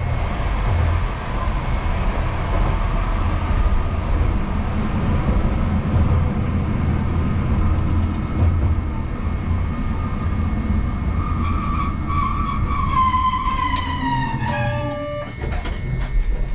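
Hankai Tramway streetcar running along the track with a steady low rumble, then a whine falling in pitch as it brakes to a stop about three-quarters of the way through, followed by a few sharp clicks as it halts.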